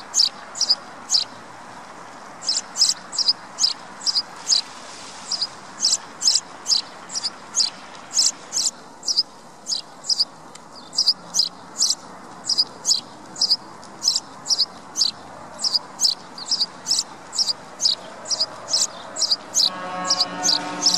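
A sparrow chirping repeatedly, with short sharp chirps about two a second in runs broken by brief pauses. A low steady hum comes in near the end.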